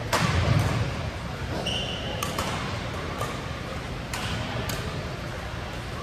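Badminton rally: a string of sharp racket hits on the shuttlecock, roughly half a second to a second apart, with a short squeak of court shoes about two seconds in. A low thump sounds at the start.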